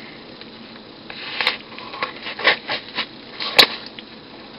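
A small mailed package being handled and opened by hand: a run of short scrapes and rustles, with a sharp click about three and a half seconds in.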